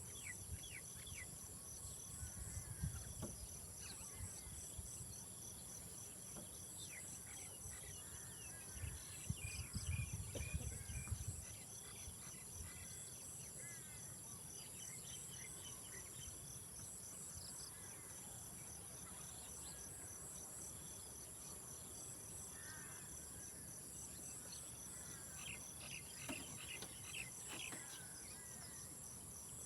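Insects calling steadily in a high, continuous drone, with rows of evenly repeated chirps over it and scattered bird chirps. Low rumbles come about two to three seconds in and again around nine to eleven seconds.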